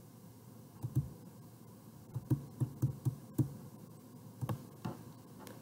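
A stylus tapping and writing on a touchscreen: scattered soft taps and clicks, about eight of them at uneven intervals.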